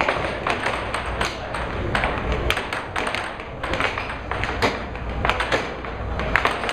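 Air hockey puck clacking against the players' mallets and the table rails in a fast rally: a quick, irregular run of sharp clicks over a steady low hum.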